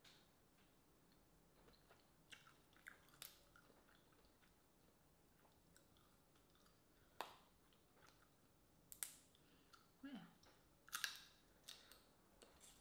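Crawfish shells cracked and peeled by hand, a scattering of small sharp cracks and clicks that come thicker near the end, with some chewing between them.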